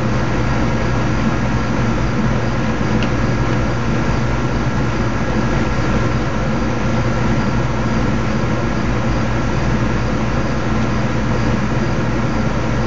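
Steady machine drone with a constant low hum, running evenly without any change.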